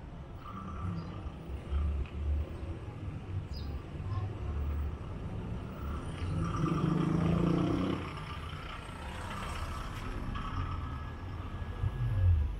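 Street traffic: a pickup truck driving past close by, its engine loudest about seven seconds in, over a rough low rumble.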